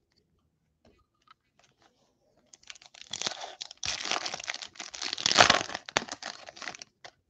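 Foil wrapper of a trading-card pack crinkling and tearing as it is pulled open by hand: a few light clicks, then a dense crackle starting about two and a half seconds in, loudest about five and a half seconds in, stopping just before the end.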